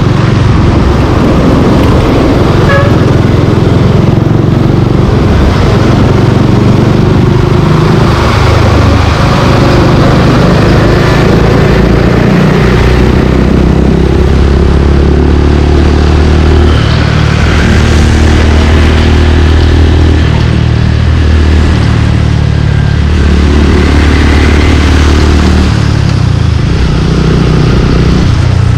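Suzuki Gixxer 155's single-cylinder engine running through an aftermarket Yoshimura exhaust while riding in traffic. The engine note climbs and drops again and again as the bike speeds up, shifts and slows.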